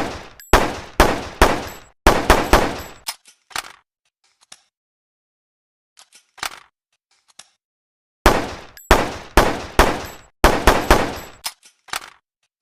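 PPM-9 handgun sound effect: a quick string of about ten shots, a pause of a few seconds with a few faint clicks, then another string of about ten shots.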